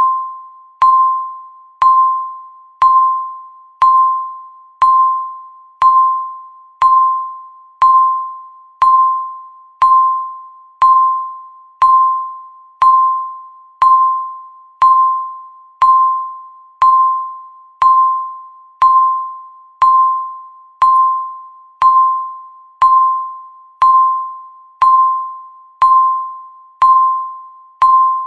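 Countdown timer beeps: a single electronic ding of the same pitch once every second, each starting sharply and fading away before the next.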